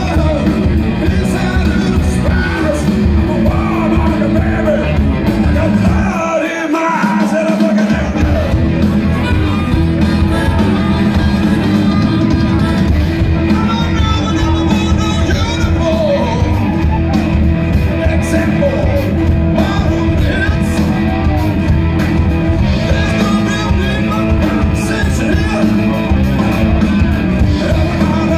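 Rock band playing loud live: electric guitars, bass and drums with a male singer shouting the vocals. The bass and drums drop out briefly about six seconds in, then come back in.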